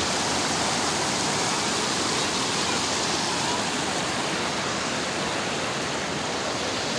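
Fast mountain river rushing over rocks and rapids, a steady loud rush of water.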